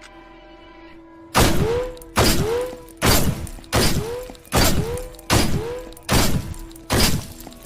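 Benelli M3 Super 90 12-gauge shotgun firing eight shots in a steady string, about one every 0.8 seconds, starting about a second and a half in, each blast trailing off in a short echo.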